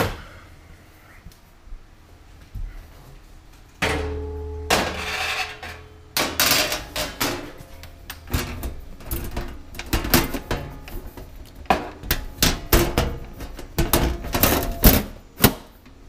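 Sheet-metal top cover of a rack server being forced back onto its chassis. About four seconds in there is a short rumbling scrape with a metallic ring, then a long run of loud clanks and bangs that is heaviest in the second half and loudest just before the end.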